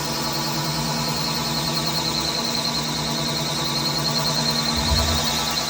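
CNC machine cutting steel, its steady running hum overlaid by a wavering high-pitched squeal from the cut, a sign of trouble at the tool that the machinist traces to a chipped cutting insert. A short low thump about five seconds in.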